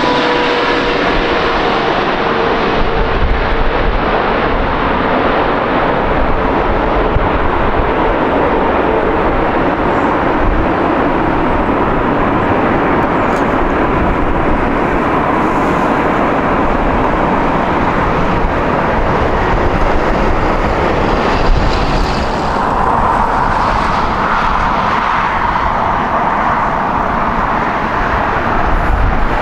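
Jet airliner's engines roaring loud and steady as it passes close by. In the first few seconds its engine whine slides down in pitch as it moves away, and near the end a fresh rise in engine tone comes in.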